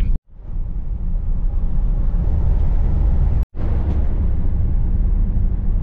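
Steady low road and engine rumble heard from inside a moving van. It is broken twice by a sudden split-second gap of silence, just after the start and about three and a half seconds in.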